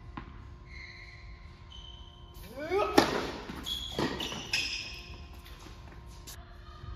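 Tennis ball struck hard on a serve about three seconds in, a sharp crack that echoes around an indoor tennis hall, followed a second later by a second ball impact.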